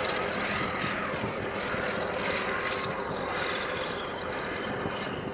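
A steady engine drone whose pitch bends slowly down and back up.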